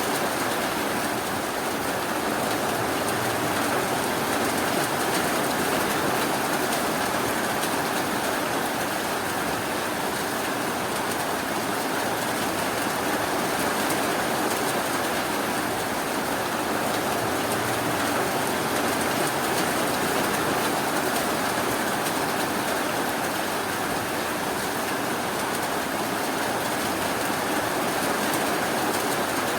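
Steady, even rainfall hissing without a break.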